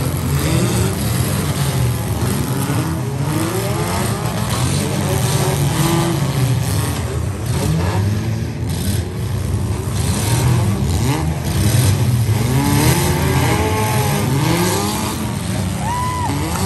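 Several compact-car engines in a demolition derby revving up and down over one another, with a few bangs of cars colliding.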